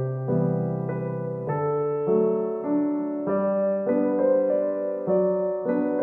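Background piano music with held chords that change about once a second.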